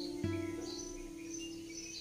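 Soft background music, likely acoustic guitar: a plucked note about a quarter second in rings out and fades over held notes, with faint bird-like chirps above it.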